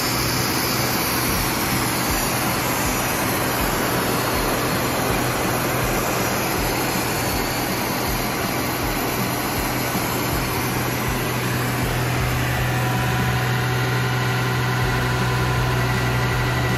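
Classic Ford Mustang's inline-six engine running steadily at an unchanging speed, with the car on a chassis dyno.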